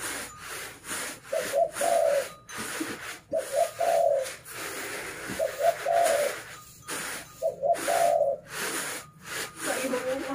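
A dove cooing a short phrase over and over, about every two seconds, over an uneven rustling hiss of unhusked rice being tossed on woven bamboo winnowing trays.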